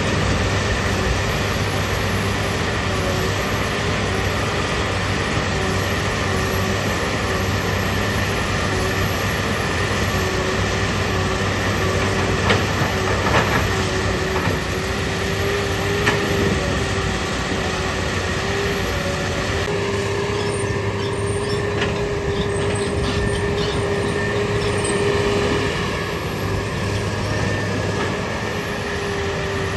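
Komatsu PC200 excavator's diesel engine running steadily, with a steady whining tone over it and a few sharp clicks and knocks around the middle.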